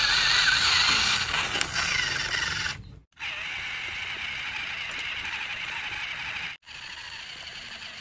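Sand scraping and sliding as a plastic toy dump truck loaded with sand tips nose-first into a hole, with light plastic rattling. The sound drops out abruptly twice, about three seconds in and again later.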